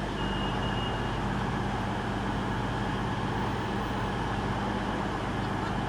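Class 220 Voyager diesel multiple unit standing at the platform, its underfloor diesel engines running steadily at an even pitch before departure. A brief high-pitched tone sounds about a second in.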